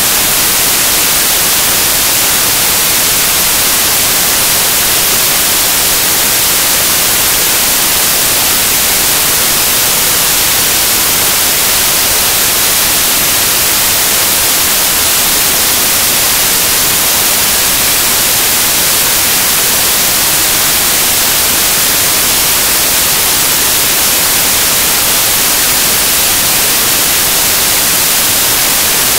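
Loud, steady static: an even hiss of white noise, strongest in the high range, with nothing else in it.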